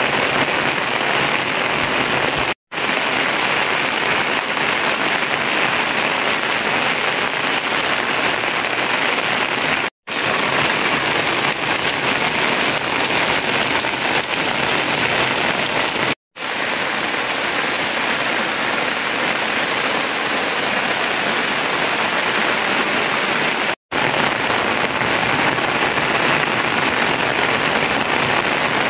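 Steady rain pouring down, an even hiss with no other sound standing out. It cuts to silence for an instant four times.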